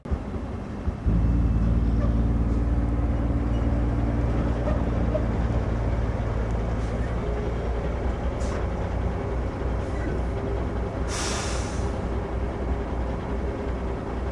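A large engine running steadily, with a short hiss of air about eleven seconds in.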